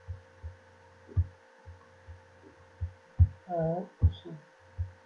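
Soft, dull low thumps at uneven intervals, about eight of them, with a low hum between them and a brief murmured voice a little past halfway.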